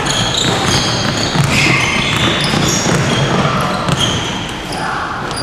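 Basketball game play in a gym: sneakers squeaking repeatedly on the court floor, with the ball bouncing, in a large echoing hall.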